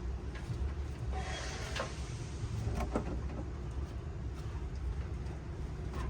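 Scattered clicks, knocks and a short scrape about a second in, from hand tools and parts as the valve cover is worked off the engine, over a steady low rumble.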